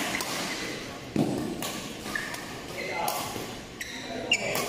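Badminton rally in a large hall: a shuttlecock struck by rackets several times, sharp hits a second or so apart, with short squeaks of shoes on the court floor and voices echoing in the hall.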